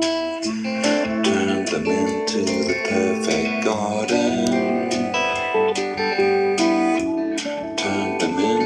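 Instrumental break in a song: guitar playing plucked notes, with sliding notes about halfway through and again near the end.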